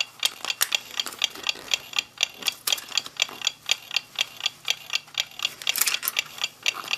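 Several mechanical clocks ticking at once, their sharp ticks overlapping in an uneven run of about four or five a second. A short scraping rustle comes about six seconds in.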